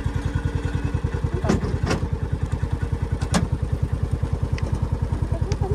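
A vehicle engine running slowly with an even low throb. Three short clicks or knocks come in the middle.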